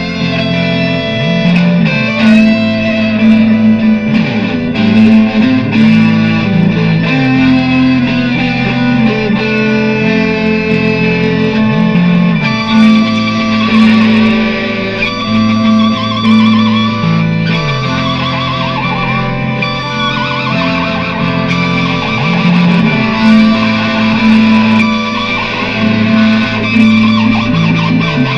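Improvised electric guitar music through effects, a low line sliding between held notes under a higher lead line with wavering, vibrato-like notes, layered over looped guitar parts.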